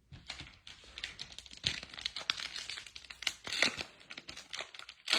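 Foil wrapper of a trading card pack crinkling and tearing as it is ripped open, with irregular crackles.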